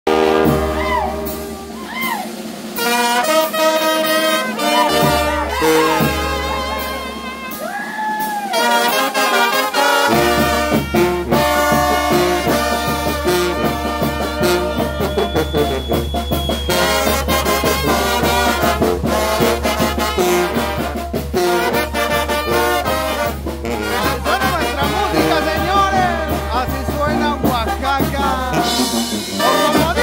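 Mixtec brass band playing a chilena: trumpets and trombones carry the tune, with saxophone, sousaphone and a bass drum with cymbal. The low bass and drum come in fully about ten seconds in.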